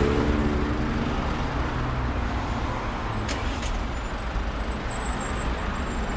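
Busy city street traffic: a steady hum of passing cars, buses and trucks. An engine fades off at the start, two short clicks come about three and a half seconds in, and a faint high whine runs through the second half.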